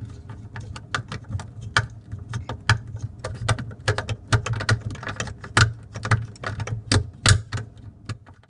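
Quarter-inch drive ratchet with a 10 mm deep socket clicking in quick, uneven runs as it tightens a small nut onto an LED's threads. A steady low hum runs underneath.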